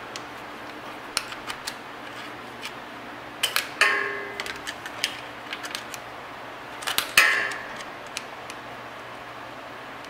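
Metal hand tools working on a connecting rod cap under the engine: scattered light clicks and ticks, and two loud ringing metal clanks, about four and about seven seconds in.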